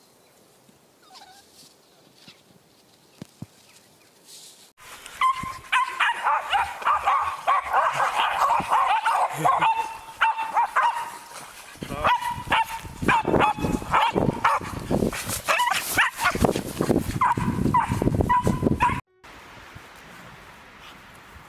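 Westie puppies barking and yipping excitedly in quick, repeated short calls while bounding through deep snow, with low rumbling thumps mixed in during the second half. The calls start suddenly about five seconds in after a quiet stretch and stop abruptly near the end.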